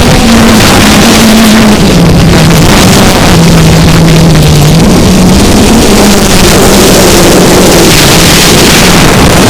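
Cheerson CX-20 quadcopter's motors and propellers droning in flight, the hum wavering up and down in pitch with throttle, under heavy wind noise.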